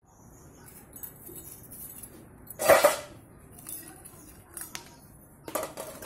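Steel bicycle cassette sprockets clinking and clattering against a metal biscuit tin as they are put into it, with one loud clatter about three seconds in, a few light ticks, and another clatter near the end.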